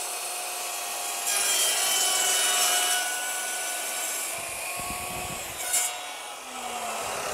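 Evolution RAGE2 355 mm TCT multipurpose chop saw with its motor running as its blade cuts through timber studded with nails; the cut is loudest for a couple of seconds after about a second in. The motor runs on after the cut, and its pitch starts to drop near the end as it winds down.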